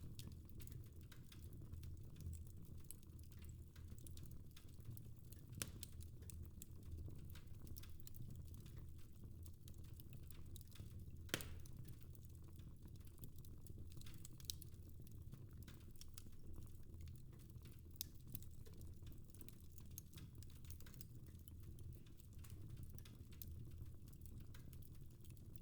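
Wood fire crackling softly in a fireplace: scattered small clicks and pops over a low steady rush of flame, with a sharper pop about 11 seconds in.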